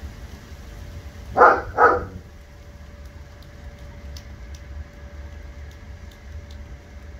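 A dog barks twice in quick succession, about a second and a half in, over a steady low rumble.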